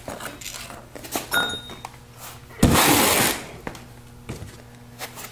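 Handling sounds of a cardboard template and lengths of steel pipe being moved on a concrete floor: a few light clicks and knocks, and a louder rustling scrape about two and a half seconds in that lasts about a second.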